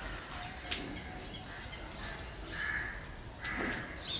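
A crow cawing, two harsh caws in the latter half, over a low steady background.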